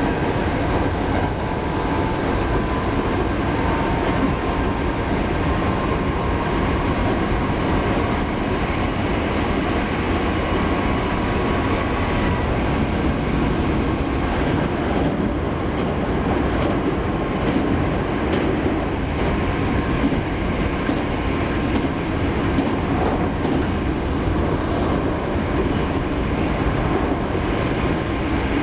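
Hankyu Kobe Line electric train running along the line, heard from inside the car: a steady rumble of wheels on rail with a faint whine in the first dozen seconds.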